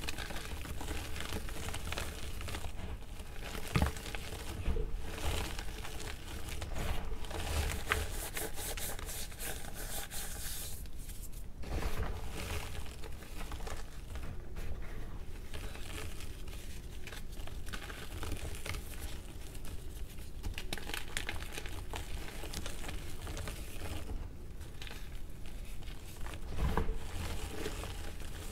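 Pink gym chalk blocks crushed and crumbled by hand, then hands pressing and working through a tray of loose chalk powder. It makes a continuous dry crunching and crackle, with a few louder crunches now and then.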